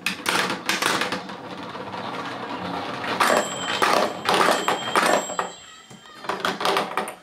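Kumon Kurukuru Chime toy in motion: plastic balls clatter and knock along its spiral tracks over the steady hum of its electric motor. Near the middle, the balls strike its chimes and ring them several times.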